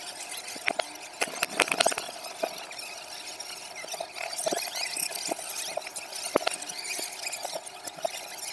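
Tapas-bar clatter: many sharp irregular clicks and clinks of plates and toothpicks, thickest in the first two seconds, over a steady hiss with a thin squealing tone. There is no clear speech, and the audio is played backwards.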